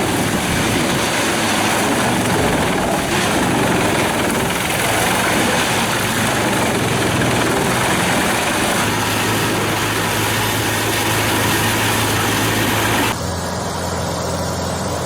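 A large engine-driven machine running hard, with a dense rushing noise over a low engine hum. About 13 seconds in, the sound cuts abruptly to a quieter, steady engine hum.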